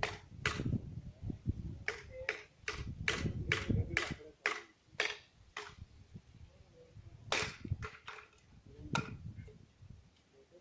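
Footsteps of a person walking: a run of sharp slaps with low thuds, about two to three a second, thinning to a few single steps after the middle and fading near the end.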